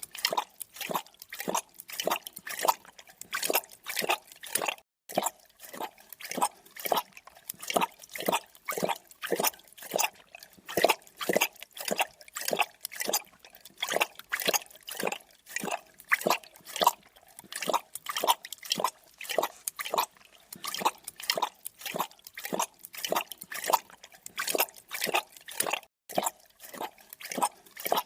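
Creature drinking sound effect: an animal lapping liquid, short wet laps repeating in a steady rhythm.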